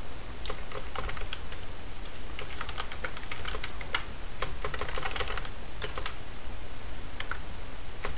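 Typing on a computer keyboard: irregular runs of key clicks with short pauses between them.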